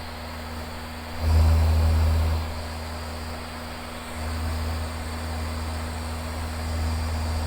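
Van's RV-7 light aircraft's engine and propeller droning in the cockpit, picked up through the headset intercom microphone, a steady low hum that swells to its loudest for about a second starting about a second in.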